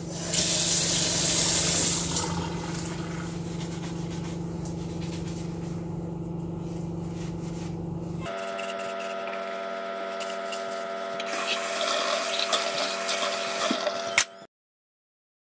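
Kitchen faucet water running into a stainless steel sink while glasses are rinsed by hand, louder in a stretch at the start and again near the end, over a steady hum. A sharp clink of glass near the end, then the sound cuts off.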